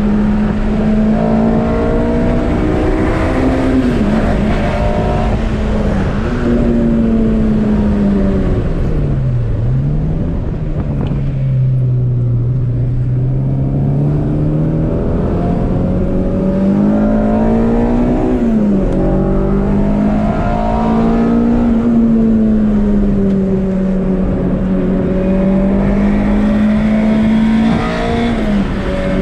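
Acura Integra Type R's 1.8-litre four-cylinder VTEC engine heard from inside the cabin, running hard at high revs on track. The pitch dips sharply a few times as the revs drop, and sinks low for a few seconds near the middle before building again.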